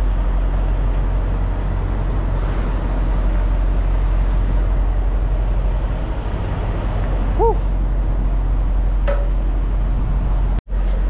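Steady low rumble of a heavy diesel truck engine idling, with a brief high chirp about seven seconds in.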